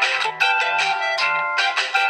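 Nokia Asha 210 ringtone playing: a melody of short notes over a low note repeating a little more than twice a second.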